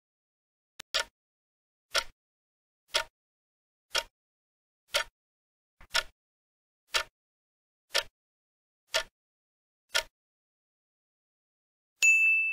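Countdown-timer clock ticks, one sharp tick a second, then a single bell ding near the end that marks time up as the answer is shown.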